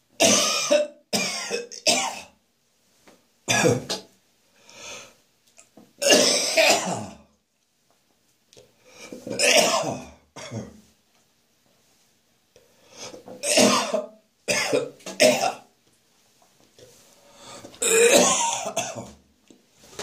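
A person coughing hard and gagging after heavy drinking the night before. The coughing comes in harsh fits every few seconds with near-silent pauses between them, and some bouts are drawn out for about a second.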